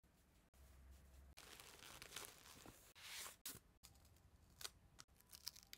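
Faint tearing and crinkling as masking tape is peeled off a clear plastic protector cap on a ball-jointed doll's head, with cotton-gloved fingers rustling against the plastic. The sound stops and starts abruptly several times.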